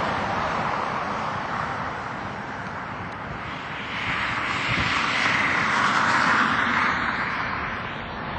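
Turbofan engines of a twin rear-engined regional jet on final approach with its gear down: a steady jet rush that swells about halfway through, loudest around six seconds in, then eases as the jet nears.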